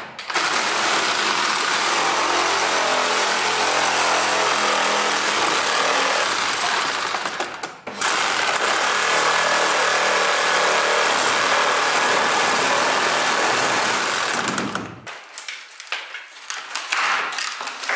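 Corded Makita reciprocating saw cutting through a wooden door frame, running steadily in two long cuts of about seven seconds each with a brief stop near the middle. After it stops, a few seconds of lighter knocking and rattling from the cut frame.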